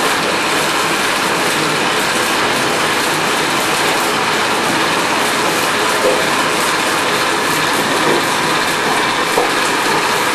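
Coffee disc pulper running steadily, its rotating discs and belt drive from an electric motor working coffee cherries and water through: a loud, continuous mechanical noise with a light rattle.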